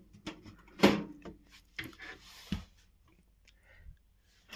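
Scattered clicks and knocks of PC power-supply cables and plastic connectors being handled and plugged in, with a sharper click about a second in and another about two and a half seconds in.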